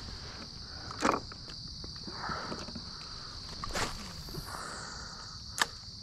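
Steady high trilling of insects in the riverbank grass, with a few sharp knocks about one, four and five and a half seconds in.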